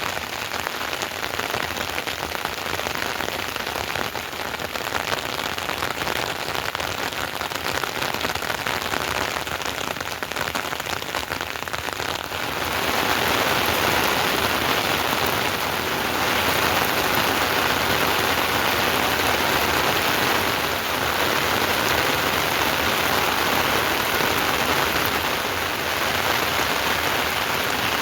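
Heavy rain falling steadily, a dense hiss that gets louder about twelve seconds in.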